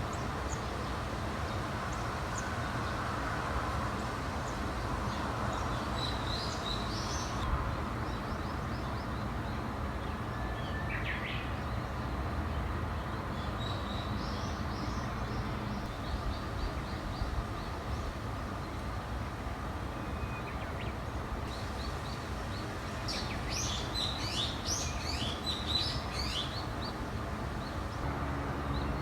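Small songbirds chirping and twittering in scattered bursts, busiest near the end, over a steady low background rumble.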